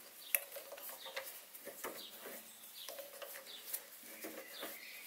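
A few faint, sharp clicks and light scraping as an M6 die in a die holder is turned by hand onto a 1/4-inch silver steel pin held in a mini lathe's chuck, cutting the thread.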